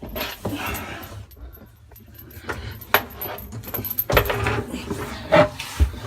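Irregular metallic clinks, knocks and rattles of hands working a water supply hose fitting onto a dishwasher's inlet, with a few louder knocks in the second half.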